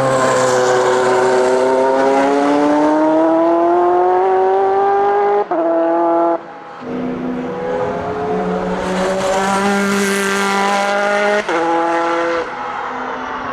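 Audi R8 LMP's twin-turbocharged V8 racing engine accelerating hard, its pitch climbing steadily. There is a sharp upshift about five and a half seconds in and a brief lift of the throttle just after. It then climbs again, with another upshift near eleven and a half seconds.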